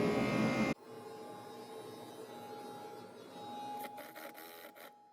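Power drill-driver running steadily as it drives a screw, a steady motor whine that cuts off abruptly under a second in. After it, faint handling noise with a few short rustles near the end.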